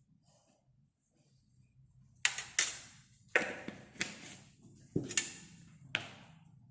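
A small metal spoon clinking against a glass, as a spoonful of cinnamon is added. About two seconds in, six sharp taps begin, irregularly spaced, each with a brief ring.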